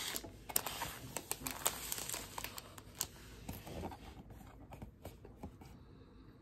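Crinkling and rustling of foil-wrapped 2023 Topps Series 1 baseball card packs and their cardboard blaster box being handled. The crackles come thick at first and thin out to a few scattered clicks after about four seconds.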